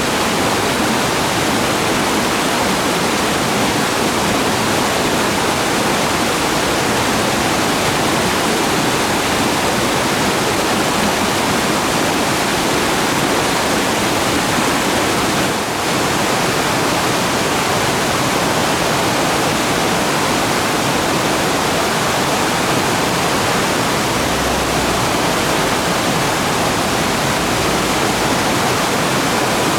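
Mountain stream rushing over rocks: a steady, dense roar of flowing water, with a brief dip about halfway through.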